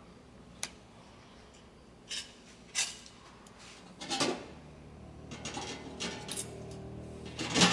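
Plate and cutlery being handled: about six separate short clinks and scrapes a second or so apart, the loudest near the end.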